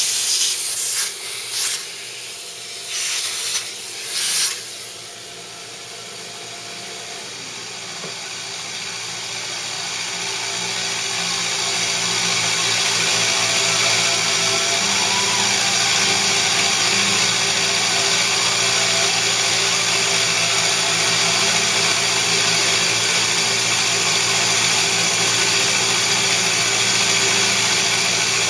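Milling machine's end mill cutting a pocket into the cast-iron Y slide: the spindle runs with a steady cutting hiss that builds over several seconds and then holds. It opens with a few short, loud scraping bursts as chips are cleared by hand beside the cutter.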